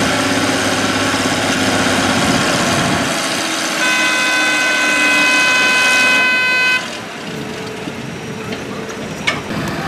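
Deutz tractor's diesel engine running hard under load while pulling the sled, with a steady horn blast of about three seconds near the middle. The noise drops after the horn, and there is a sharp crack near the end.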